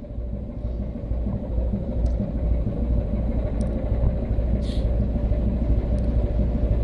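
Steady low rumble aboard a ship underway at sea, cutting off abruptly near the end.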